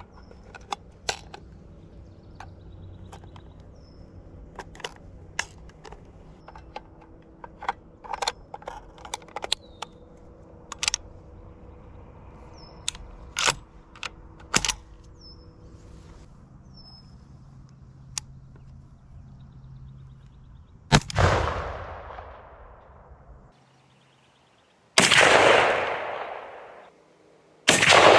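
Shotgun firing Phoenix Burst incendiary shells, a Dragon's Breath-type load: three loud blasts, about 21 s in, about 25 s in and near the end, each with a long fading echo. Before them, a string of scattered sharp clicks and pops and a few short bird chirps.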